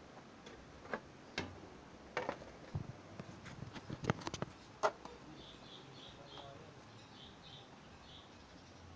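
Scattered clicks and knocks from handling an opened LED TV set, bunched in the first five seconds and loudest about four seconds in. After that, faint high chirps repeat in short series.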